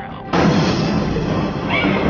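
Trailer music, with a sudden loud, noisy hit about a third of a second in that carries on as a dense wall of sound.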